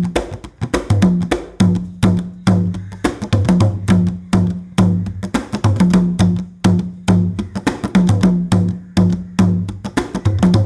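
Giriama drums played in a fast, dense rhythm: sharp, woody clicks several times a second over deep ringing drum notes that alternate between two pitches.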